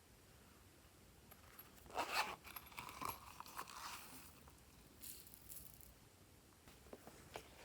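Slime being squished and stretched by hand, giving a cluster of small clicks and sticky pops about two seconds in, a few more around five seconds, and a couple of sharp clicks near the end.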